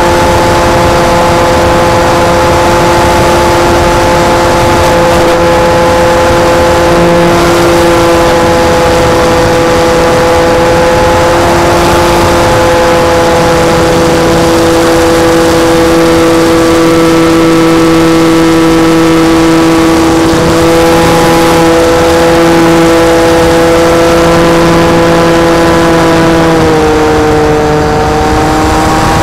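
Electric motor and propeller of a PZL-104 Wilga RC foam model plane, a steady whine with wind rushing over the microphone. About 26 seconds in the pitch dips briefly, then climbs back near the end.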